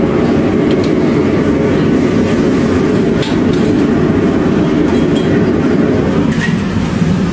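Steady loud roar of commercial gas wok burners and the kitchen's extraction hood, with a few faint metallic clinks of a wok spatula against the wok.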